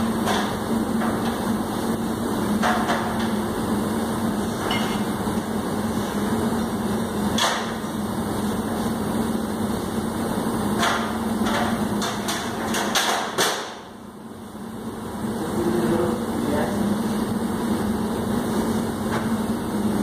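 Metal clanks and knocks from a loaded trolley and trays being worked into the stainless-steel chamber of a high-speed steam sterilizer, over a steady machinery hum. The knocks are scattered, with a cluster of them in the second half.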